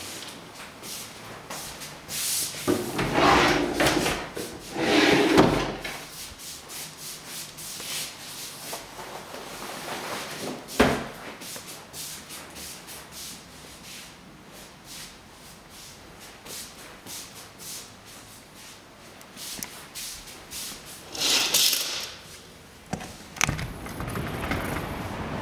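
Rubbing and brushing of a lace curtain being pushed aside, then light handling taps and a sharp knock about eleven seconds in. Near the end a sliding window is opened, and a steady hiss of outdoor wind and traffic comes in.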